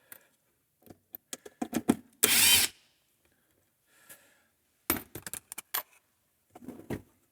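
Cordless drill-driver running in one short burst about two seconds in, backing out a temporary screw from a wooden drawer front, among scattered clicks and knocks of handling.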